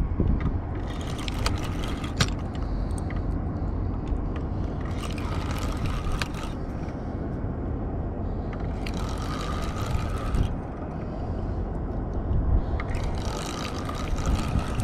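Spinning reel being cranked in short spells about every four seconds, each a whirring with a steady whine, as a hooked catfish is reeled in. A steady low rumble runs underneath.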